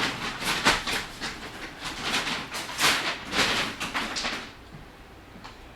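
Rummaging through a clutter of tools and objects, a busy run of rattling, scraping and clattering that stops about four and a half seconds in.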